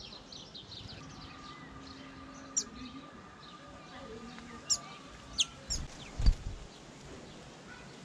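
Small garden songbirds calling: a handful of short, sharp, high chirps scattered through the middle, over faint twittering. A dull low thump about six seconds in is the loudest sound.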